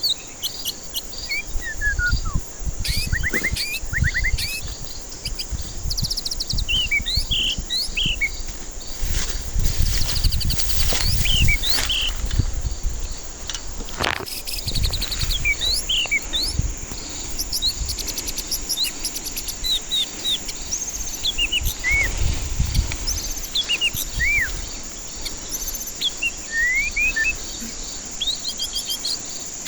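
White-rumped shama singing a varied run of short whistled and chirping phrases over a steady high insect buzz, with an intermittent low rumble underneath.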